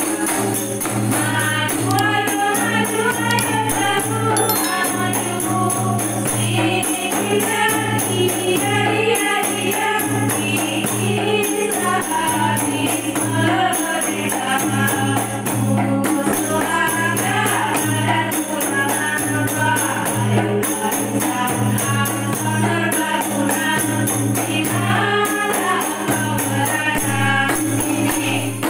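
A group of women singing an Indonesian Islamic devotional song in unison into microphones, accompanied by rebana frame drums in a steady rhythm.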